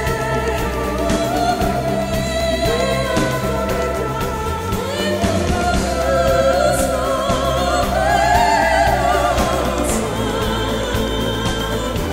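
Background music: a sung melody in long, wavering notes over steady accompaniment.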